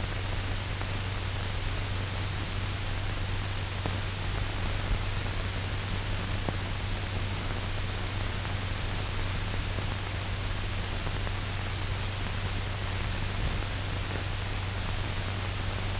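Steady hiss with a low hum and a few faint clicks: the background noise of an old optical film soundtrack, with no voice or music.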